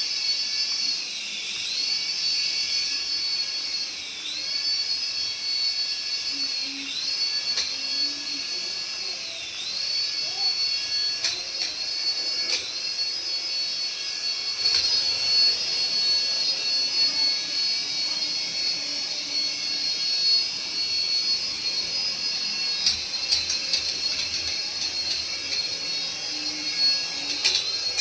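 Small electric motor of a remote-control toy running with a high-pitched whine that dips briefly in pitch several times, as if throttled down and back up, with a few clicks along the way.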